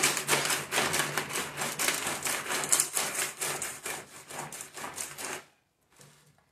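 Ice clattering and crunching as an aluminium ice-cream pot is twisted back and forth by hand inside an ice-packed bucket. It makes a rapid, even run of clicks, about five a second, that stops abruptly near the end.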